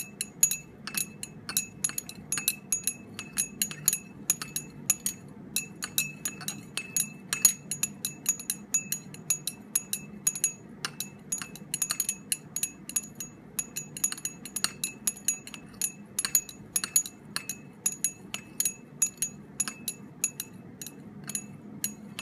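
Glass stirring rod clinking against the inside of a small glass beaker as a solution is stirred. The clinks come rapidly and irregularly, several a second, each with a short bright ring, over a faint low hum.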